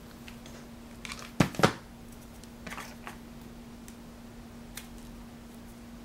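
Hands handling a cardstock leaf and paper stem: two sharp taps close together about a second and a half in, then faint, brief paper rustles as the leaf is pressed and shaped around the stem. A faint steady hum runs underneath.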